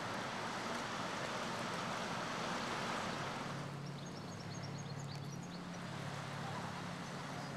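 Water rushing along the hull of a cargo barge as it pushes its bow wave through the Danube. About three and a half seconds in the rush drops away and a steady low boat-engine hum takes over, with a few faint high chirps from a European goldfinch.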